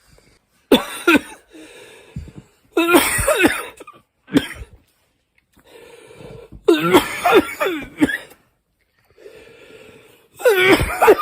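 A man coughing in about five separate fits, with wheezy breaths and strained voice sounds. It is a capsaicin cough from eating a superhot chili pepper.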